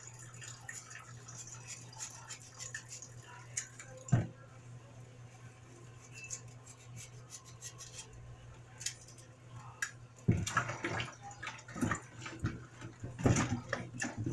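Kitchen tap running into a plastic tub in a stainless steel sink, under a steady low hum, with one sharp knock about four seconds in. From about ten seconds in, louder splashing and clatter as sweet potato slices are handled in the water.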